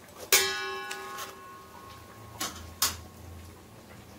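Stainless steel pot struck by a metal spatula: one sharp clang about a third of a second in rings on for over a second, followed by three lighter metal clinks.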